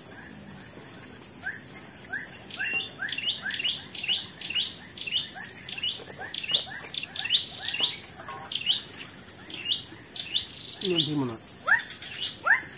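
A bird calling over and over in short rising chirps, about two a second, growing louder as it goes, over a steady high drone of insects.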